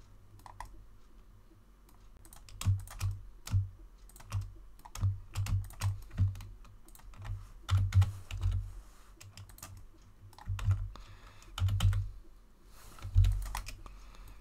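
Computer keyboard keys struck in irregular bursts as modelling shortcuts are typed, with a dull thud under the harder strokes; it is quieter for the first two seconds, then the keystrokes come steadily until the end.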